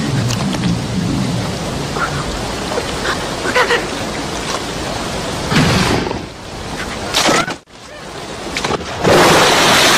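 Rushing white-water river: a steady wash of water noise, with a few short sharper sounds over it and a louder surge of water noise about nine seconds in.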